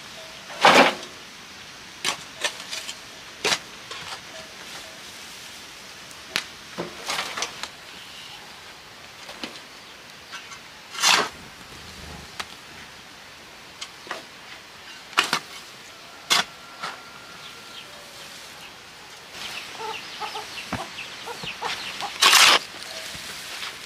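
A hand hoe chopping and scraping into dry, stony earth: short sharp strikes at irregular intervals, a second or several apart, coming thicker near the end.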